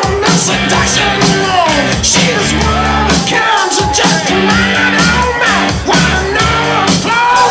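Dance music: a pop song with a singing voice over a steady bass line.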